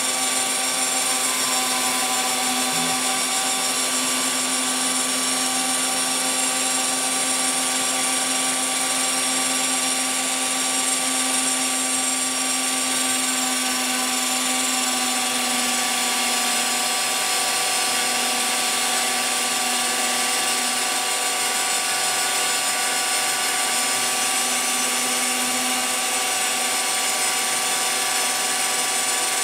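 CNC router spindle running at high speed as its small bit mills a fibreglass sheet: a steady whine over a constant hiss of cutting noise. A lower hum in the mix drops out about halfway through.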